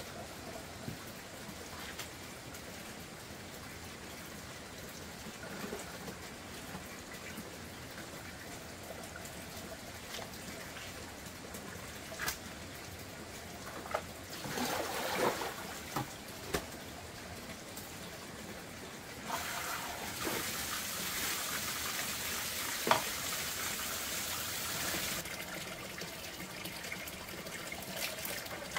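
Water running steadily from a pipe into a concrete tank, with splashing and a few knocks as a plastic basin is handled at the tap. About two-thirds in, a stronger rush of water from the tap starts suddenly and stops just as suddenly some six seconds later.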